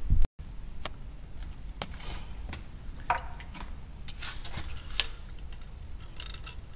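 Small clicks, taps and metallic clinks from black-powder pistol loading tools being handled, including a sharper ringing tick about five seconds in.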